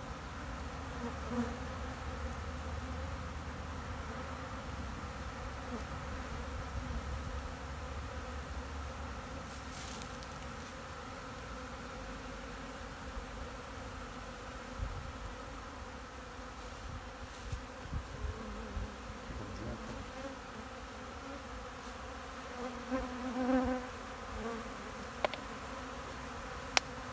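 A swarm of honeybees buzzing steadily as they forage on flour put out as a pollen substitute. A few bees swell louder as they pass close, and two sharp clicks come near the end.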